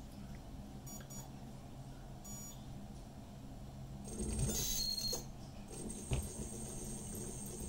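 Brushless electronic speed controller beeping briefly a couple of times, then, from about four seconds in, a steady high-pitched electronic whine as it drives the converted car alternator, with one sharp click about six seconds in.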